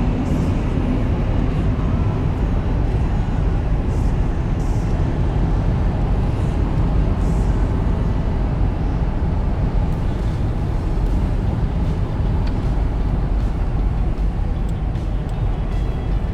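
Steady vehicle noise while driving: a constant low rumble of engine and tyres on the road.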